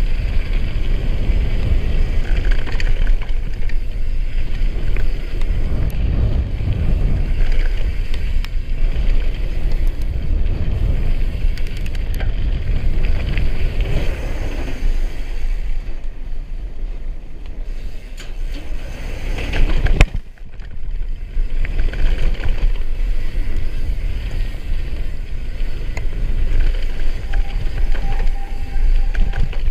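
Downhill mountain bike ridden fast down a gravel trail: wind buffets the camera microphone over a steady tyre rumble and the rattle of the bike. Partway through the tyres hum across a metal grating bridge, and about twenty seconds in there is one sharp knock, the loudest moment, from a hard bump or landing.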